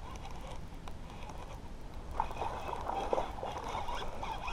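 Baitcasting reel being cranked to reel in a hooked fish: a soft, steady winding sound with small faint ticks, over faint water sloshing.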